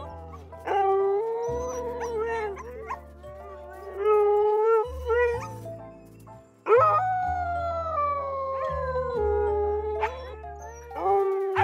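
Siberian huskies howling, an adult and puppies joining in, in long wavering howls; one howl rises sharply about seven seconds in and then slowly falls. Background music with steady low notes runs underneath.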